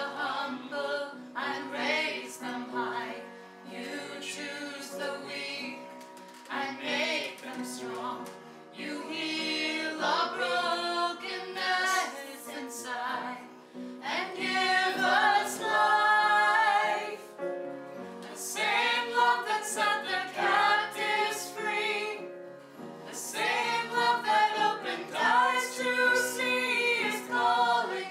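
Choir singing a hymn, its phrases swelling louder in the second half.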